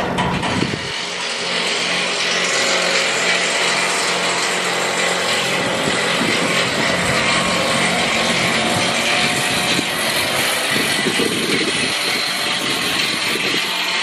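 Electric rotary hammer chipping concrete in a rapid train of blows that stops just after the start; then a steady engine hum under a constant high hiss.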